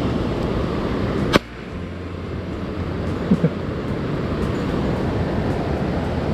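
Steady rushing of a mountain stream running high after rain. There is a sharp click about a second and a half in, with the noise dipping briefly after it, and two small ticks a couple of seconds later.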